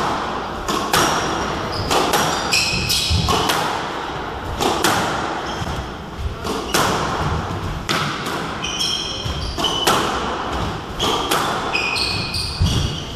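Squash rally: sharp knocks of the ball off rackets and the walls about once a second, with court shoes squeaking briefly on the wooden floor, mostly in the second half.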